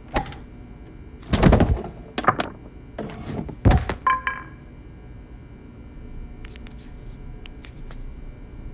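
Heavy thuds of blows being struck, about four of them in the first four seconds, followed by a short ringing clatter. After that, only a few faint ticks.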